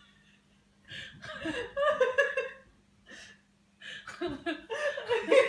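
A person laughing off and on in short, high-pitched bursts: one spell about a second in and another from about four seconds in.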